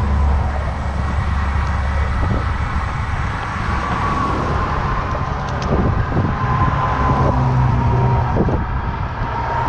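Road traffic on a highway running past a moving bicycle, a continuous steady noise with a strong low rumble.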